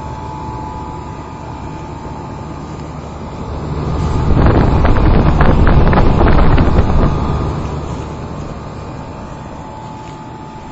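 1964 Trane 2-ton central air conditioner's outdoor unit running with a steady hum and a faint steady whine. About four seconds in, a louder rushing noise swells over it for a few seconds and fades.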